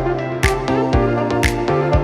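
Background music with a steady beat: held notes over low drum hits, with a sharp high hit about once a second.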